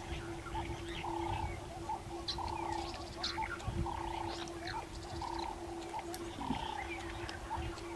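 Evening bush ambience: a steady low drone under a short trilling call that repeats about once a second, with scattered high bird chirps.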